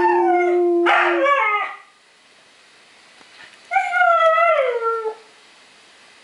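Young Siberian huskies howling: a long howl over a held note, with falling glides on top, ends about a second and a half in. A second, shorter howl comes about four seconds in and slides down in pitch at its end.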